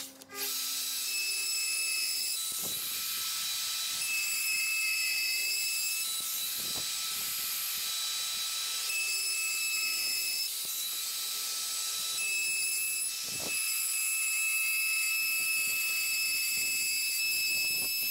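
Hand-held plunge router running at full speed, a steady high whine over a hiss, as its cutter routes a joint through a kitchen worktop guided by a worktop jig. The whine shifts slightly as the cutter takes load, with a few knocks along the way.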